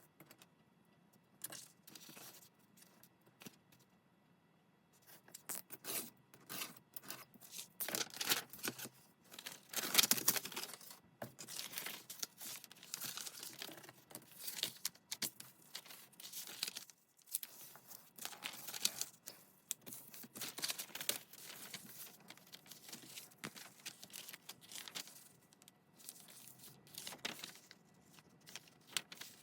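Paper being handled at close range: irregular rustling, crinkling and tearing of paper sheets, starting a few seconds in and loudest around the middle, with a short pause near the middle.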